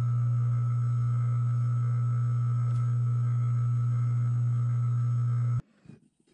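Restored 1940s Craftsman drill press electric motor running on a bench test, a steady low hum that sounds pretty good: the motor tests good. The hum cuts off suddenly near the end.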